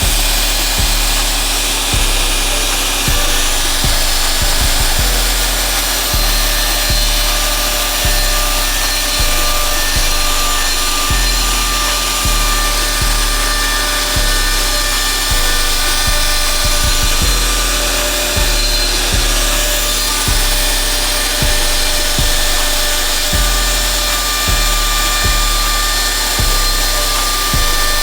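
Electric wood router running and plowing a circular pocket into wood, a steady whine with cutting hiss. Background music with a bass beat pulsing about once a second plays under it.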